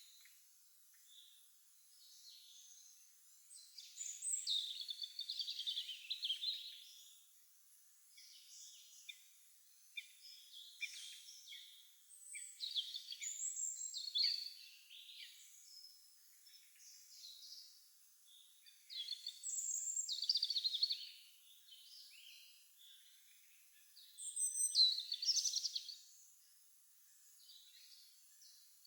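Songbirds singing: phrases about two seconds long come every few seconds, with quieter chirps between them. The loudest phrase comes near the end.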